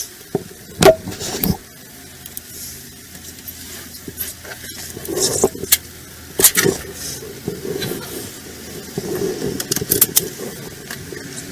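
Sharp knocks and clicks with rustling of handling and movement around a vehicle, over a low steady rumble. The loudest knock comes about a second in, and a few more follow scattered through.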